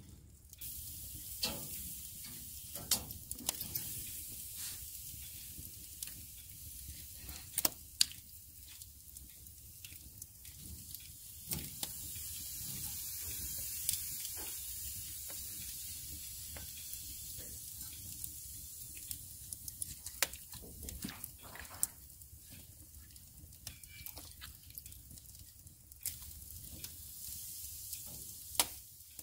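Meat sizzling over wood embers, a steady hiss broken by frequent sharp crackles and pops from the fire.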